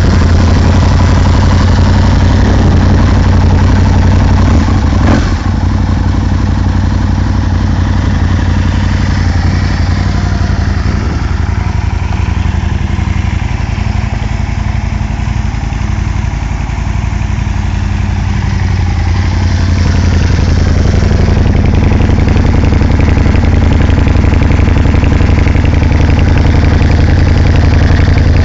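Aprilia Tuono Factory's 60-degree V-twin motorcycle engine idling steadily. It is a little quieter midway and louder again over the last stretch, close to the twin silencers.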